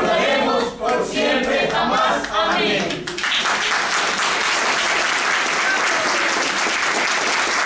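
A group of voices singing together for about three seconds, then the audience breaks into applause: steady, dense clapping.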